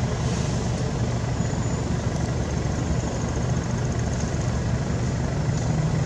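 Steady low rumble, with a faint high, evenly pulsed buzz in the middle.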